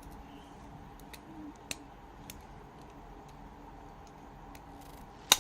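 Small sharp clicks from handling phone parts and tools during a smartphone repair: a few faint clicks, then one louder click near the end.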